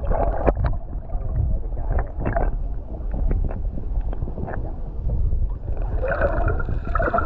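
Water sloshing and gurgling at the microphone: a heavy low rumble with scattered knocks and splashes, the muffled sound of a camera held in or at the surface of shallow water.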